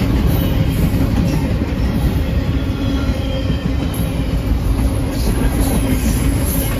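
Double-stack container train's freight cars rolling past close by: a steady, loud rumble of steel wheels on rail, with faint high wheel squeal now and then.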